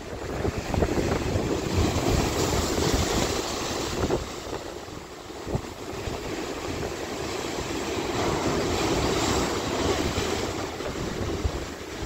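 Rough sea waves breaking and washing over large coastal rocks, a continuous surging hiss of surf. It swells up, eases off about halfway through, then builds again.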